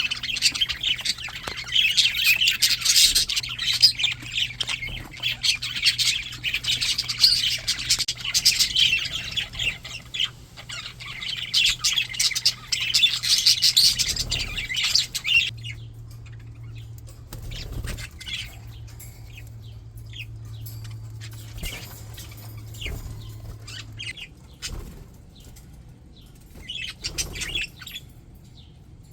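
A flock of English budgies chattering and warbling, dense and continuous for about fifteen seconds, then breaking off suddenly, leaving only scattered short chirps. A faint low steady hum runs underneath for most of it.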